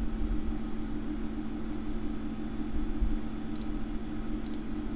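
Steady low electrical hum and hiss of background room noise, with two faint mouse clicks in the last second and a half.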